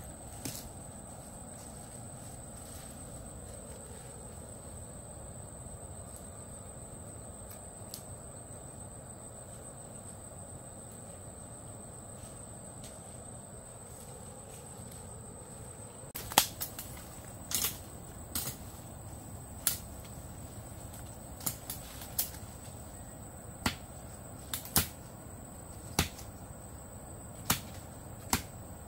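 Sharp knocks or taps, roughly one a second at uneven spacing, starting a little past halfway, over a steady high-pitched tone and a low background hum.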